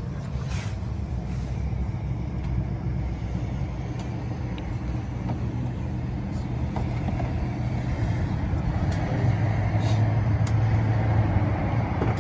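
A motor vehicle engine running steadily with a low hum that grows a little louder about eight seconds in, with a few faint light clicks.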